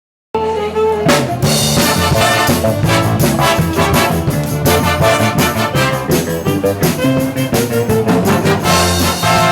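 A wind band playing swing-style dance music, led by trombones and trumpets over a steady beat. The music cuts in suddenly right at the start.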